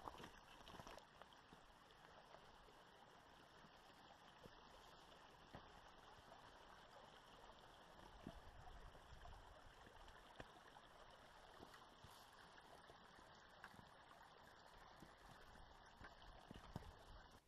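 Near silence: a faint steady hiss of outdoor ambience with a few soft scattered taps.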